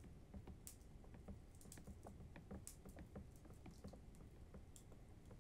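Near silence: room tone with faint, irregular small clicks and ticks scattered throughout.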